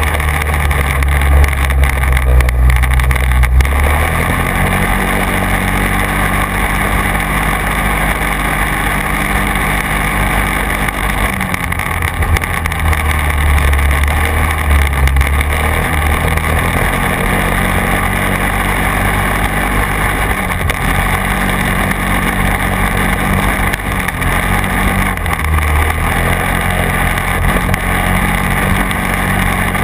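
Quad (ATV) engine running while riding over rough tracks, its pitch stepping up and down several times as the throttle and speed change.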